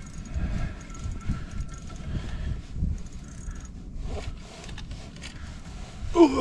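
Steady low wind rumble on the microphone while a small ice-fishing reel is cranked against a fighting fish, with faint light clicks. A short voiced grunt or exclamation comes near the end.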